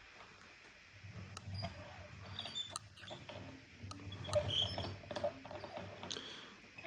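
Scattered light clicks and taps of hand tools and parts being handled, spread unevenly, with a few short, faint high chirps between them.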